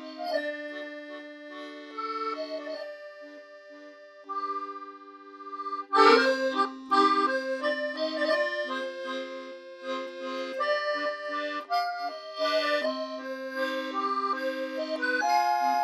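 Background music led by accordion, a light Parisian-style tune of held notes; it thins out and softens for a couple of seconds, then comes back fuller and louder about six seconds in.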